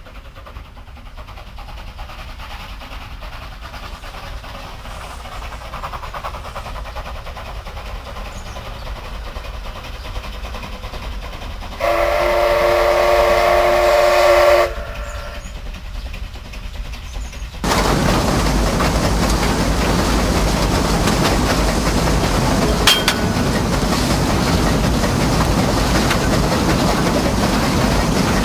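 Narrow-gauge steam locomotive working toward the listener, its exhaust growing steadily louder, then one steam whistle blast of about three seconds. A few seconds later a loud steady rushing noise starts abruptly and holds to the end.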